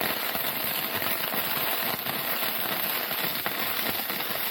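Flux-core arc welding with a Milwaukee M18 battery-powered welder: a steady, dense crackle of the arc as a bead is run, hot enough to burn right through the metal.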